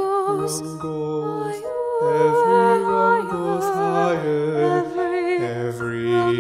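Soprano and tenor singing a slow duet of a spiritual with piano accompaniment. The soprano's vibrato is plain on the held notes.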